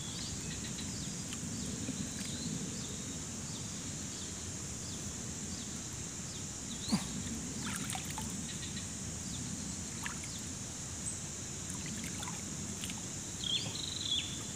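Shallow river water sloshing and dripping around a wader's hands and legs as a stake is worked into the riverbed, under a steady high insect drone. A single sharp click about seven seconds in.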